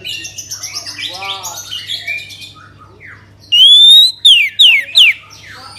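Orange-headed thrush (anis merah) singing: a run of varied chirps and warbled phrases, then a loud rising whistle about three and a half seconds in, followed by three quick, loud down-slurred whistles. A low steady hum runs underneath.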